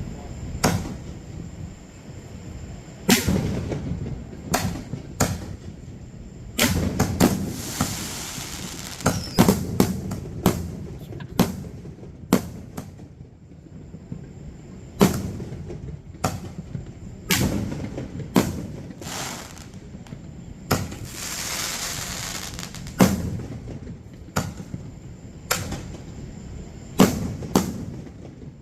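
Aerial fireworks shells bursting one after another: sharp booms, some close together, with two stretches of hissing crackle between the blasts.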